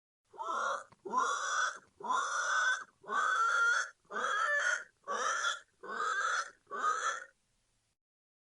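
A domestic pig calling eight times in a row, each call short with brief gaps between.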